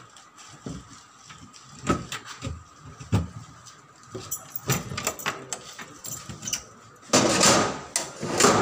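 Wooden inner doors of an old iron safe locker being swung and shut, with a series of knocks and clunks. Near the end a small drawer at the base is pushed in with a loud scraping rumble lasting about a second.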